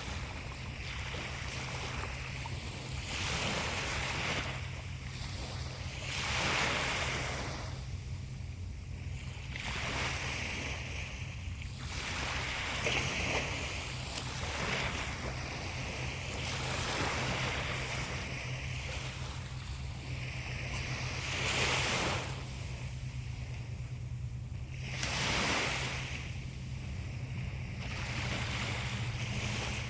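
Sea waves washing in on the shore, the surf swelling and easing every few seconds, a few surges louder than the rest, over a steady low hum.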